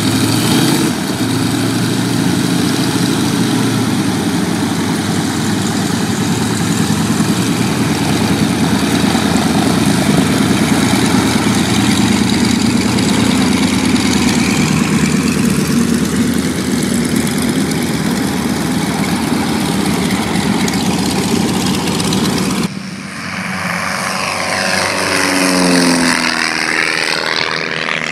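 Propeller aircraft engines running steadily close by. After a sudden cut about 23 seconds in, a propeller plane passes low and close, its sound swelling and falling in pitch as it goes by.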